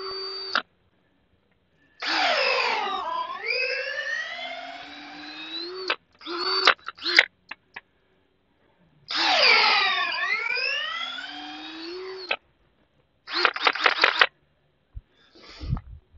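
Power drill boring tap holes into a maple trunk, in two long runs where the motor's pitch drops sharply as the bit bites into the wood and then climbs back up, with short trigger blips between them. A quick rapid stutter follows, and a few low thumps come near the end.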